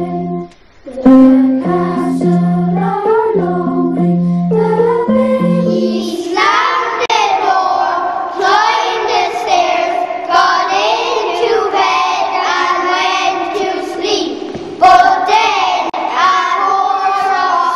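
A group of children singing a song together with instrumental accompaniment. The first six seconds or so are an instrumental passage of steady held notes, then the children's voices come in and carry on to the end.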